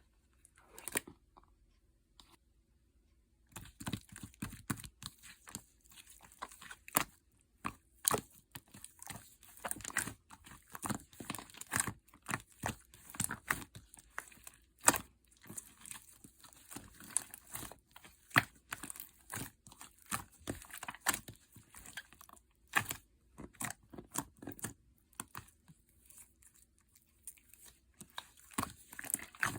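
Slime being worked by hand, giving irregular sticky pops and crackles as it is pressed and pulled. The popping starts after a quiet few seconds and goes on densely.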